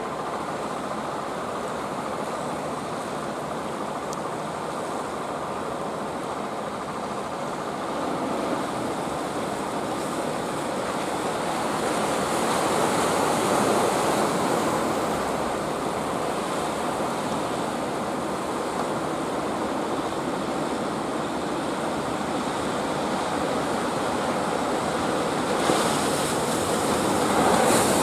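Sea surf and wash with wind buffeting the microphone, and the low running of fishing boats' engines underneath; the rush swells louder around the middle and again near the end.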